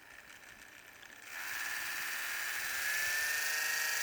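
A 9-volt variable-speed rotary manicure and pedicure tool is switched on a little over a second in. Its small electric motor spins up with a rising whine, then runs at a steady pitch.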